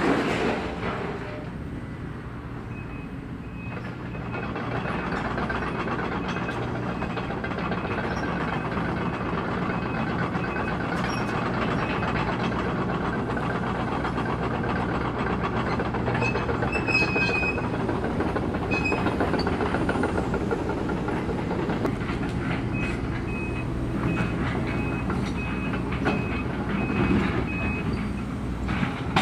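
Link-Belt 210 excavator at work: its diesel engine runs steadily under load over a dense clatter and scrape of metal, which grows louder about four seconds in. A high, evenly spaced beeping, typical of a travel alarm, sounds through long stretches.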